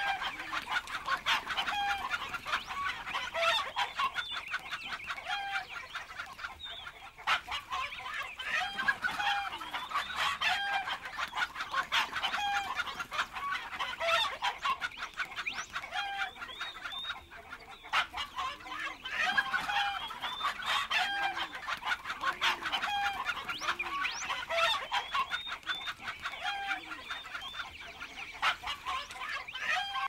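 Domestic chickens in a mixed poultry flock clucking and calling, with many short calls overlapping continuously.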